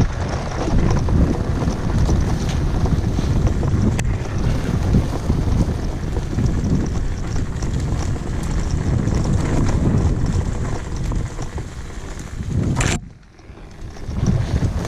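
Wind buffeting the microphone in a steady low rumble with uneven gusts, dropping away sharply for about a second near the end before picking up again.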